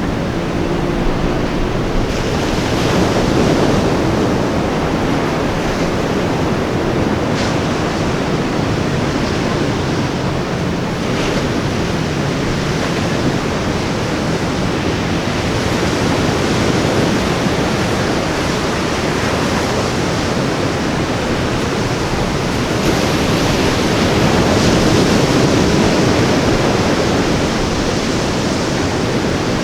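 Ocean waves washing onto a beach as a steady surf rush, swelling slightly a few seconds in and again near the end.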